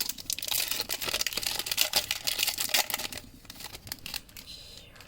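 Wrapper of a Mosaic basketball card pack being torn open and crinkled, a dense crackling for about three seconds that then dies down to a few faint rustles.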